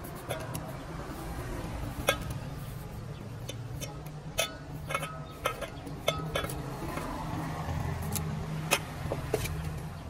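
A knife peeling carrots by hand over a metal saucepan: irregular sharp clicks and light clinks. A steady low hum runs underneath.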